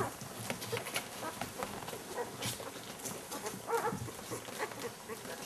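Newborn golden retriever puppies giving short, high squeaks and whimpers, with a stronger cry nearly four seconds in.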